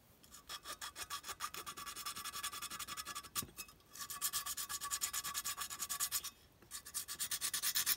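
Sandpaper rubbed back and forth by hand on a tinplate clockwork locomotive body, taking off a thick spot of paint: a quick run of short, even scraping strokes, broken by two brief pauses about three and six seconds in.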